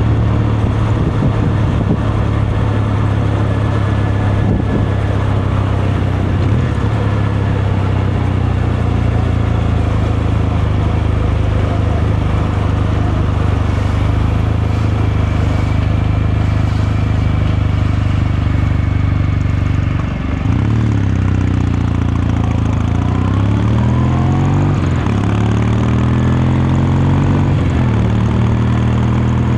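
Kawasaki Meguro K3's air-cooled parallel-twin engine and exhaust, ridden at a steady pace. About twenty seconds in the throttle closes briefly, then the revs climb and fall back a few times as it accelerates up through the gears.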